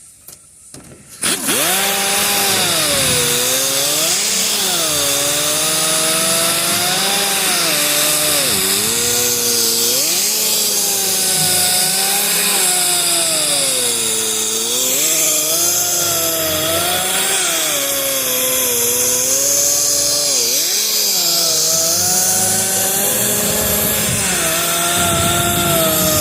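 A handheld power tool starts about a second in and runs without a break, stripping layers of paint and primer from a car's roof panel. Its motor pitch keeps rising and dipping as it is pressed into the panel, over a loud grinding hiss.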